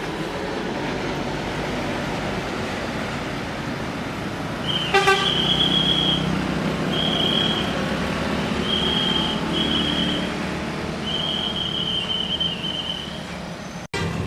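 Tour bus's Basuri telolet horn sounding a string of high, steady toots on one pitch with short gaps between them, over a bus engine running. A short, lower horn blast comes as the first toot starts, about a third of the way in.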